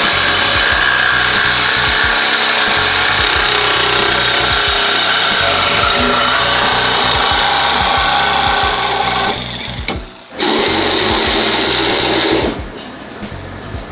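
Corded reciprocating saw cutting through the car's old exhaust pipe, running steadily and loudly. It cuts out briefly about ten seconds in, runs again, and stops shortly before the end.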